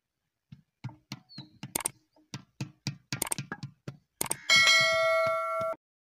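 Subscribe-button animation sound effect: a quick run of clicks and knocks, then a bell ding about four and a half seconds in that rings for just over a second and cuts off abruptly.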